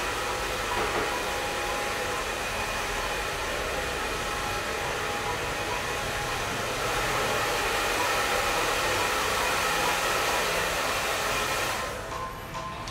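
Tap water running steadily into a ceramic shampoo basin, a strong even hiss that stops near the end. Faint background music lies beneath it.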